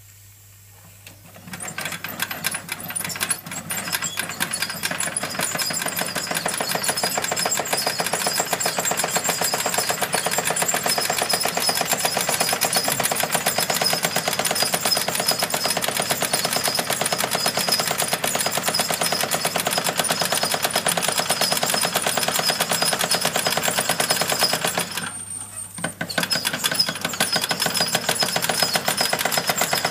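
Antique toy stationary steam engine running fast with a rapid, even clatter of strokes, driving belt-driven tin models. It starts up about a second and a half in and drops out briefly about 25 s in before running on.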